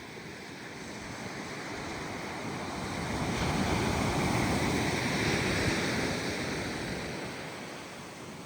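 Gentle ocean waves breaking on a beach: one surge of surf builds from about a second in, peaks around the middle, then fades away.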